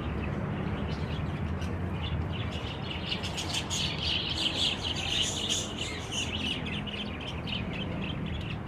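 A pair of cockatiels chirping: a quick run of short, high chirps that grows busiest in the middle, over a steady low hum.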